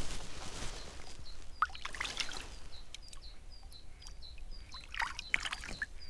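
Water splashing and trickling in lake shallows as a perch is released by hand, in short clusters of splashes. Behind them a small bird repeats a high, short note about twice a second.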